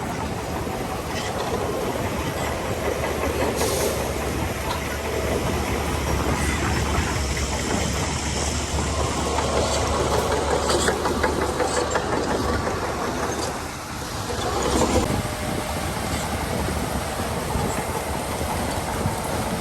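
Shantui DH17 C2 crawler bulldozer working: a steady diesel engine drone with the steel tracks clanking and rattling throughout. The engine sound dips and then surges again about fourteen seconds in.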